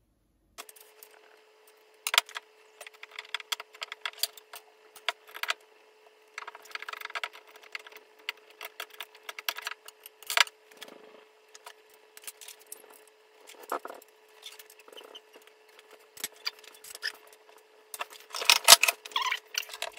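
Small metal antenna fittings clicking and rattling as a vertical antenna is put back together by hand, with a fibreglass pole knocking; a louder cluster of knocks comes near the end. A faint steady hum runs underneath.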